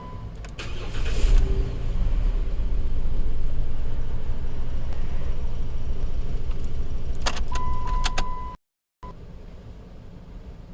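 2011 Jeep Wrangler 3.8 L V6 is started and settles into a steady low idle. The engine is still misfiring on cylinder 2. Near the end there are a few clicks and a short steady chime-like tone, then the sound cuts off abruptly and stays quieter.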